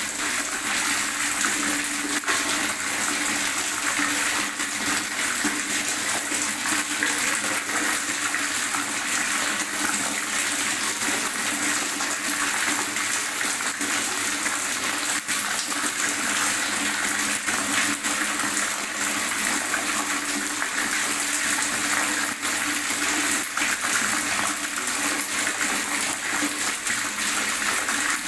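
Water gurgling steadily and without pause.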